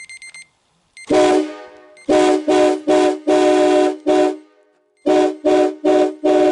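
Train horn sounding a chord of several tones in a rhythmic run of blasts: one long blast about a second in, then quick short honks with a longer one among them, a brief pause, and more short honks. A phone alarm's beeping cuts off just before the first blast.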